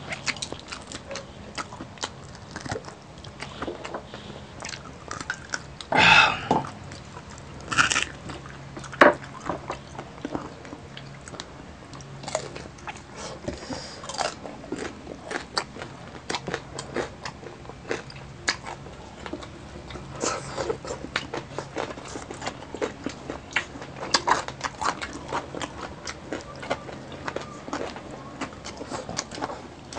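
Close-miked eating of crispy deep-fried pork knuckle: rapid crunching, biting and wet chewing from people eating with their hands. A few louder bursts come about six and eight seconds in.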